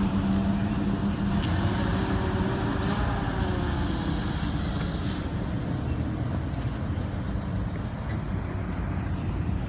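A motor vehicle's engine running steadily, its pitch rising and falling gently about two to three seconds in.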